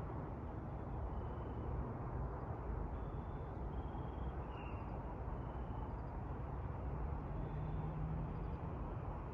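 Low, steady rumble of a distant jet airliner passing overhead, with faint short high chirps now and then.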